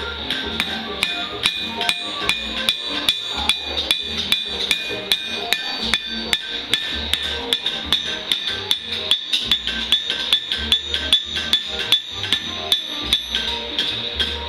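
Blacksmith's hammer striking hot steel on an anvil in a steady rhythm, about two to three blows a second, each blow ringing. Music plays underneath.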